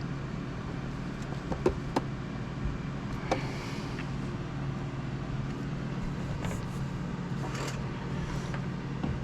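A few sharp clicks and taps of small parts and tools being handled, over a steady low hum.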